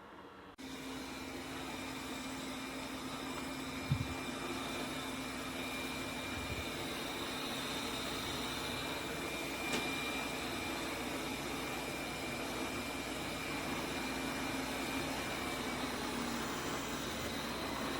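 BPMIO robot vacuum running: a steady whirr of its suction motor with a faint high whine, starting abruptly just under a second in. A few low thumps and one sharp click occur along the way.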